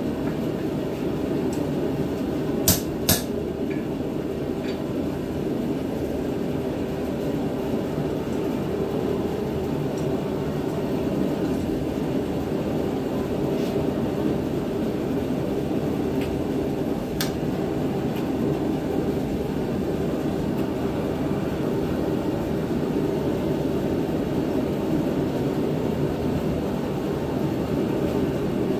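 Blacksmith's forge running with a steady roar while the tomahawk head reheats in it, with two sharp metallic clinks about three seconds in and another about halfway.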